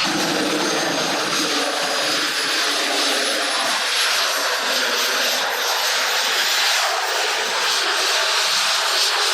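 Aircraft engine noise: a steady rushing sound with a thin high whine that slowly rises in pitch.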